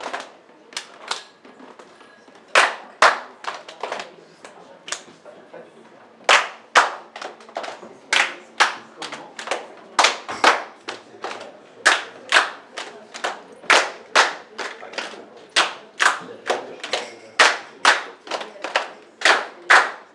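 A group of singers clapping their hands in time. There are a few scattered claps at first, then from about six seconds a steady rhythm of sharp claps, about two a second, getting denser toward the end.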